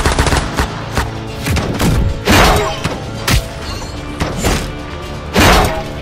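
Action-scene sound effects over dramatic background music: a quick burst of gunshots at the start, then heavy blows and hits, the loudest about two and a half, three and a half and five and a half seconds in.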